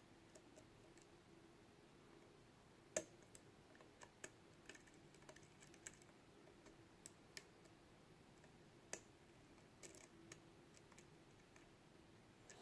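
Faint, irregular clicks of a lock pick and tension wrench working the pins of a Mul-T-Lock Jr. pin-tumbler padlock core, with sharper clicks about 3 seconds in and again near 9 seconds, over a faint steady hum. The picker reaches a deep false set on this core.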